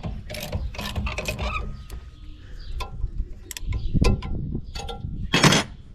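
Scattered metal clinks and knocks of tools and engine parts being handled, with a brief louder scrape near the end.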